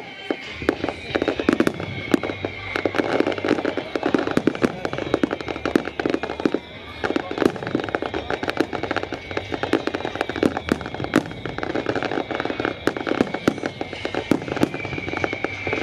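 Fireworks display: a dense barrage of shell bursts and crackling bangs, several a second, easing briefly about six and a half seconds in before picking up again.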